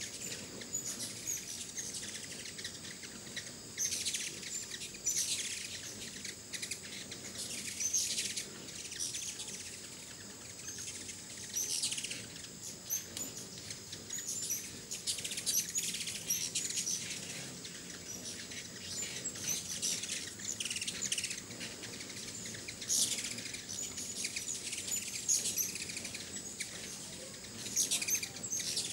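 A swarm of ruby-throated hummingbirds at a feeder: many high, squeaky chips and twitters in short flurries every second or two, mixed with the whirring of wings as they hover and chase each other.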